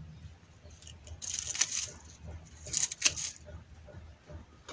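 Pruning shears snipping through fleshy succulent stems, with the rustle of handled leaves: two bouts of snipping and rustling, about a second and a half and three seconds in, the second ending in a sharp click.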